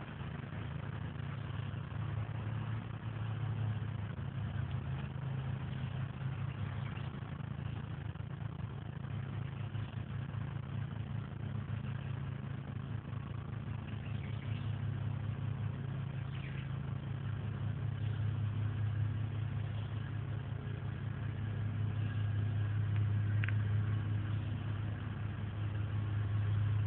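A machine running steadily with a low hum, growing a little louder near the end.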